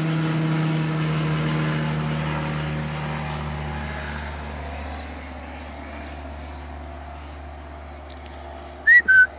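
A single-engine propeller aircraft flies low overhead, its engine a steady drone that is loudest at first and fades as it moves away. Near the end come two short high whistles.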